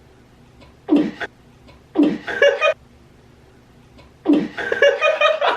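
People laughing in three bursts, about a second in, about two seconds in and again from about four seconds on.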